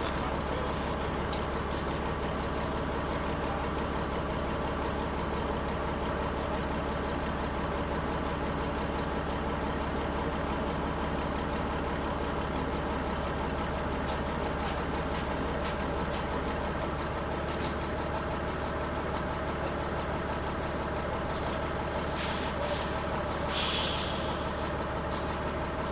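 Heavy truck's diesel engine running steadily, with a few light clicks and a brief hiss of air near the end.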